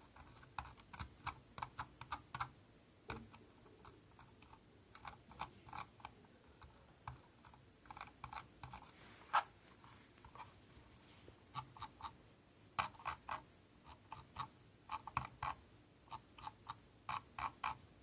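Logitech G304 wireless mouse making short sharp clicks in quick runs of several at a time, with pauses between. This is an abnormal noise from the mouse, which the owner reports as a fault.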